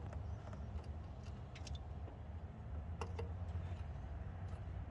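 A few faint, scattered metal clicks and ticks from a universal stud extractor being fitted and adjusted over a broken bolt, over a steady low hum.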